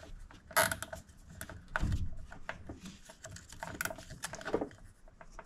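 Nylon zip tie being pulled tight through its ratchet head, a run of irregular quick clicks mixed with plastic and wiring rustling.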